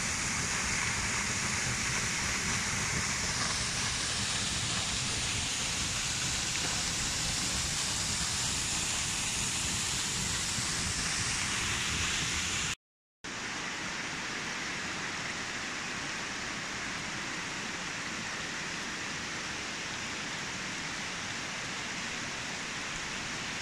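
Waterfall rushing steadily. After a brief break about halfway, a slightly quieter steady rush of water continues.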